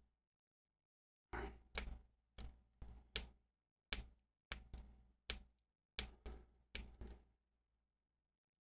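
Metal lock pick and tension wrench clicking against the sliders inside an On Guard bicycle U-lock while it is being picked: a quick, uneven run of sharp clicks that stops about seven seconds in.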